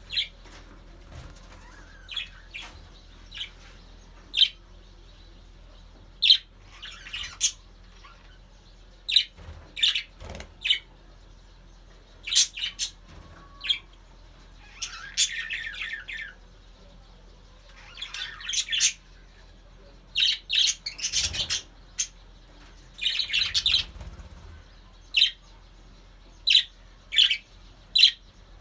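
Budgerigars chirping in short, irregular calls, with a few longer warbling bursts of chatter.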